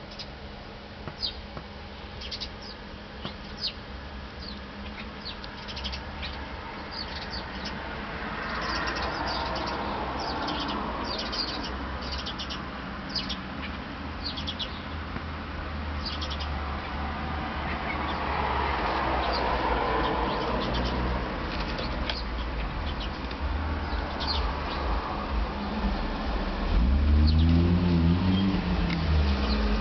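Small birds chirping in many short, high peeps, over a low rumbling background that grows louder. Near the end a low call with a rising-and-falling pitch comes in.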